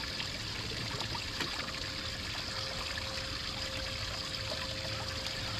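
Water trickling steadily, with a faint steady hum coming in about halfway through.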